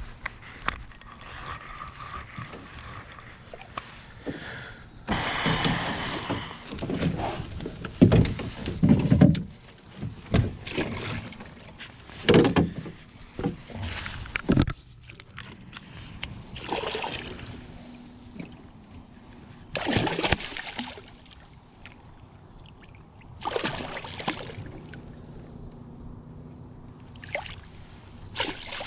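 Irregular splashing and sloshing water with knocks and handling noise as a hooked mudfish (bowfin) is struggled with beside and in a small boat.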